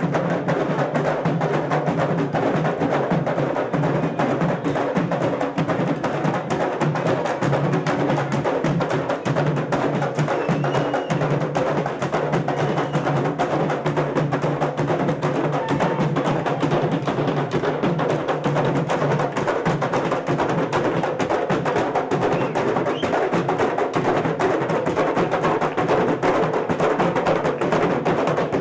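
A candombe drum troupe playing tamboriles, wooden barrel drums each struck with one bare hand and one stick, in a dense, unbroken rhythm. Sharp clicks of sticks striking the drums' wooden shells run through it.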